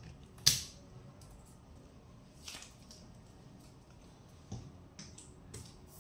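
A few sharp, separate taps and knocks: one loud one about half a second in, then lighter ones near the end.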